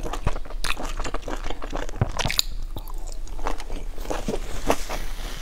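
A person biting into and chewing a pan-fried stuffed bun with a browned crust: irregular crunches and mouth clicks.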